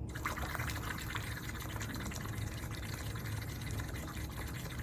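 Air blown through a drinking straw into a glass of water, bubbling steadily through one long exhalation, as a bubble-blowing breathing exercise for the lungs.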